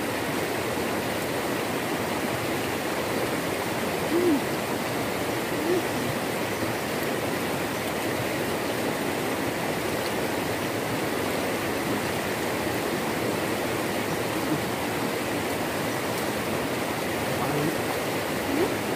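Steady rushing of a small river flowing over rocks.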